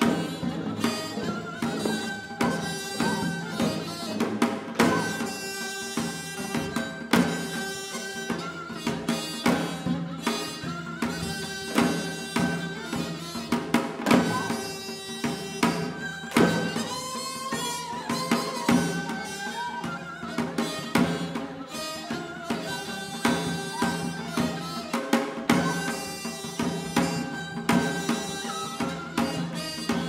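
Korean traditional music for the janggu dance: janggu hourglass drums beat a steady rhythm under a held melody line that bends in pitch now and then.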